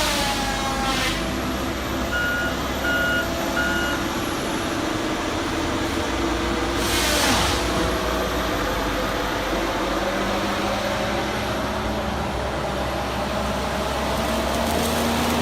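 Heavy machine engine running steadily, with a backup alarm beeping three times about two seconds in. Brief rushes of hissing noise come at the start and again about seven seconds in.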